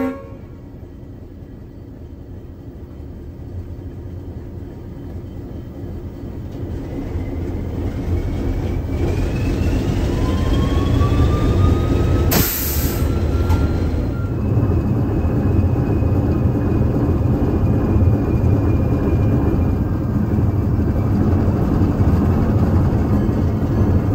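ALCO RS-1 diesel locomotive heard from inside its cab as it pulls away, its six-cylinder ALCO 539 engine throttled up, the low rumble building over the first dozen seconds. A rising whine comes in as the train gathers speed, and there is a brief sharp hiss about twelve seconds in.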